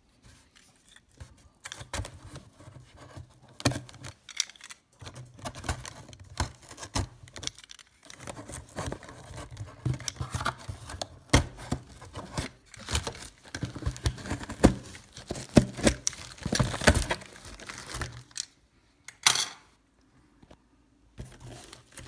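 Clear packing tape being torn and peeled off a cardboard box, with irregular rips and scrapes of the cardboard and crinkling of plastic wrapping. It pauses for a couple of seconds near the end.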